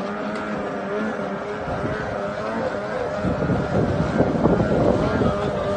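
Snowmobile engine running steadily at high revs as the sled skims across open water. Wind buffets the microphone from about three seconds in for roughly two seconds.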